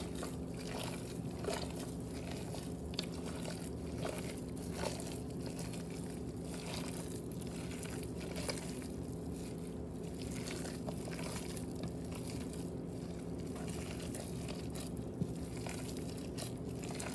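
Gloved hands squishing and kneading raw ground-beef meatloaf mixture with freshly added beaten eggs in a bowl: soft wet squelches and small clicks, over a steady low hum.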